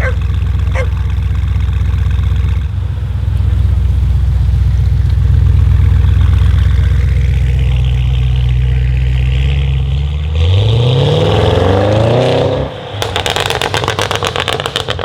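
Audi RS6 C8's twin-turbo V8 through a Capristo exhaust, rumbling steadily at low revs, then climbing in revs for about two seconds about ten seconds in. On lift-off it gives a rapid string of crackles and pops from the exhaust.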